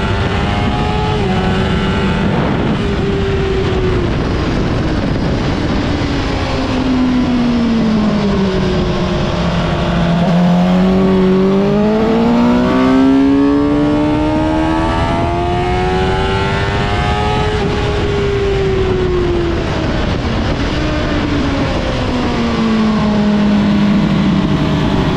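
Suzuki sportbike engine at high speed, heard from on board over heavy wind rush. The engine note sags slowly for several seconds, climbs again over about seven seconds, then falls and settles near the end.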